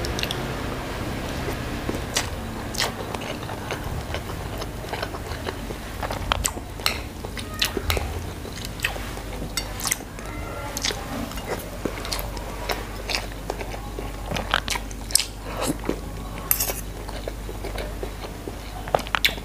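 Close-up eating sounds of a person chewing and smacking his lips on a mouthful of rice and beef soup. Irregular sharp clicks run throughout, with the odd clink of a metal spoon and fork against a ceramic plate and bowl, over a low steady hum.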